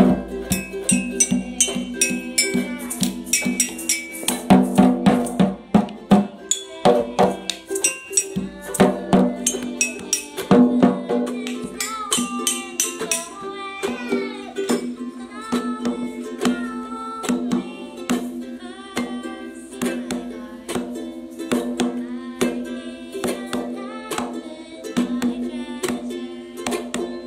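A woman singing to a strummed ukulele, with children shaking and striking hand percussion such as shakers along with it. The percussion strokes are busiest in the first half.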